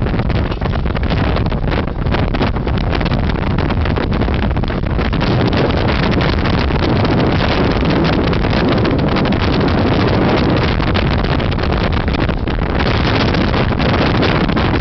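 Strong sandstorm wind buffeting the microphone: a loud, steady rush of noise with a constant low rumble.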